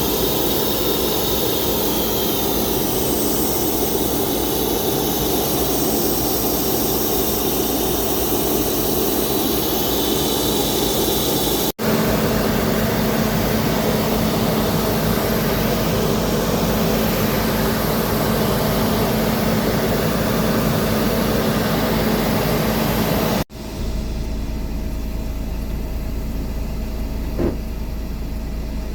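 Aircraft turbine engines running loud and steady, with a constant whine over a rushing roar. The sound cuts out for an instant about twelve seconds in and again near twenty-three seconds, where it turns duller and lower.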